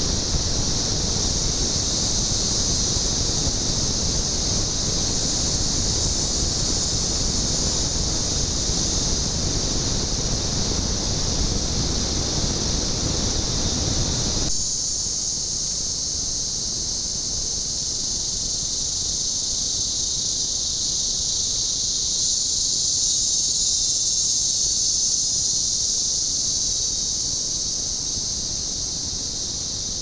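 Dense, steady high-pitched insect drone of tropical forest. A low rushing noise beneath it stops abruptly about halfway through, leaving the insects alone.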